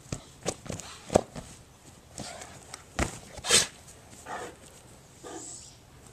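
Great Dane pawing at and batting a basketball on a grass lawn and bounding about: a series of dull thumps and footfalls, with the sharpest knocks about a second in and about three seconds in.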